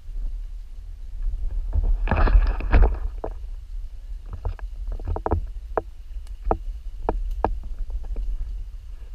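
Footsteps on a narrow dirt forest trail: a loud rustling burst at about two seconds, then a string of sharp, irregular steps. Under them runs a low steady rumble of wind and handling on the handheld camera's microphone.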